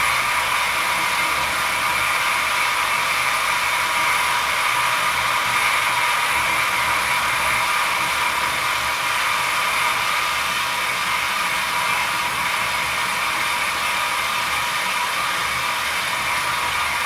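Cordless drill running at a steady speed with a steady whine, driving a motorcycle wheel round through a rubber disc for a light finishing skim of its brake drum on a milling machine.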